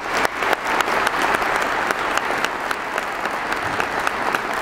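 Audience applauding steadily, many hands clapping at once: sustained applause at the end of a talk.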